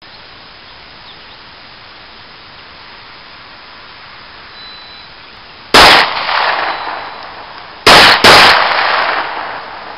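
Three shots from a stock Glock 17 9mm pistol: one a little past halfway, then a quick pair about two seconds later. Each shot is followed by an echo that trails off over about a second.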